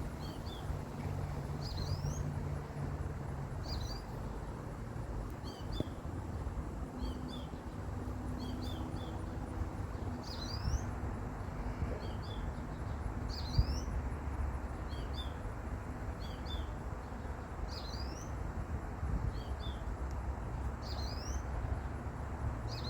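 A small songbird chirping repeatedly, short high notes every second or two, over a steady low rumble of outdoor background noise.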